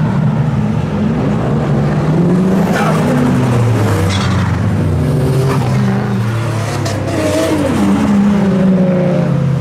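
A group of modified cars driving past one after another, several engine notes overlapping and rising and falling as they rev and change gear, with a few sharp pops.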